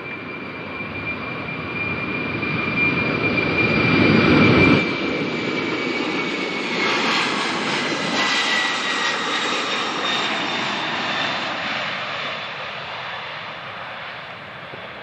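UPS Boeing 767 freighter's twin jet engines at high power as it rolls past down the runway on its takeoff run. A roar with a steady high whine builds to its loudest about four to five seconds in, then drops sharply. The whine falls lower in pitch as the jet passes, and the sound fades slowly.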